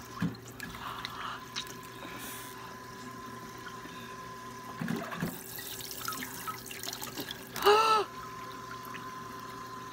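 Kitchen sink tap running steadily while water is splashed onto the face to rinse off a face mask, with a few short splashes. A brief vocal exclamation about eight seconds in.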